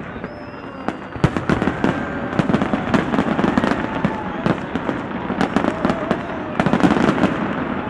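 Large fireworks display going off: many sharp bangs in quick succession, thickest from about a second in, over a continuous din.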